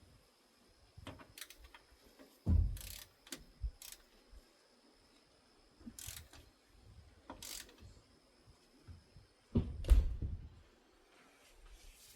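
Tools and engine parts being handled during a teardown: scattered clinks and knocks, with two heavier thumps about two and a half seconds in and again near ten seconds.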